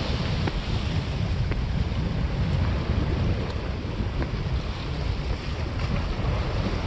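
Wind buffeting the microphone in a gusting low rumble, over the steady wash of sea water against the breakwater's granite blocks.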